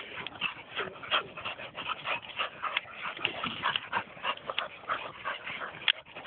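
Two dogs playing tug of war with a stick, giving short whimpers and yips in quick, irregular succession.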